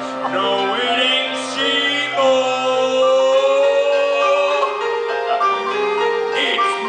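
Stage-musical singing with keyboard and band accompaniment, the voice wavering on sustained notes and holding one long note a couple of seconds in.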